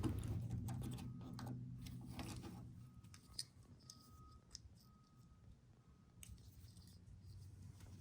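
Faint small plastic clicks and snaps of a wiring-harness connector being handled, over a low hum that fades away in the first couple of seconds.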